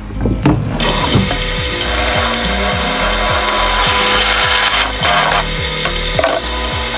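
Bench drill press running, its step drill bit boring a hole through a plastic bottle; the loud cutting noise starts about a second in.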